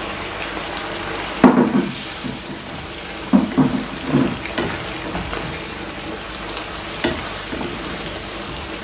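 Chicken pieces and thickened sauce sizzling in a frying pan while they are stirred, a steady hiss broken by a few knocks and scrapes of utensils against the pan. The loudest knock comes about one and a half seconds in.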